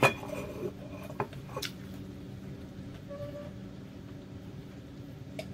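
A sharp knock, then two lighter knocks about a second later, over a steady low hum; a brief faint tone about three seconds in.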